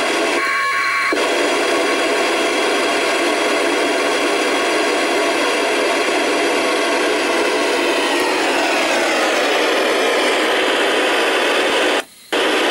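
Steady FM receiver hiss from a 2-metre FM transceiver tuned to the ISS downlink on 145.800 MHz, the noise of an open receiver with no station after the space station has signed off, with faint whistles in it. Several whistles glide downward about two-thirds of the way through, and the hiss cuts out for a split second near the end.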